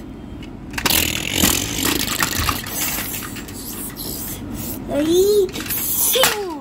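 Rustling and scraping as a plastic toy truck is handled and moved over a cloth bedspread, with scattered small clicks. Near the end come two short rising-and-falling vocal sounds from a child.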